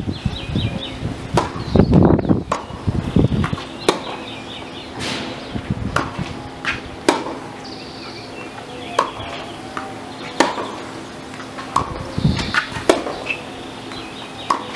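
Tennis balls struck with rackets and bouncing during a baseline rally on a hard court: sharp pops about one to one and a half seconds apart. A low rumble sits under the first couple of seconds.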